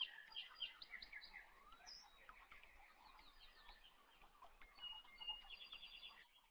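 Faint birdsong: birds chirping with short sweeping notes and quick trills, one rapid trill near the end.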